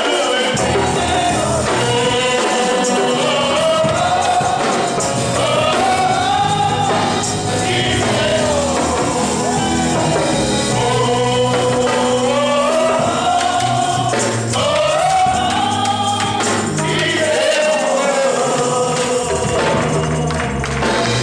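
Gospel worship song: voices singing a flowing melody over instrumental accompaniment with a percussive beat.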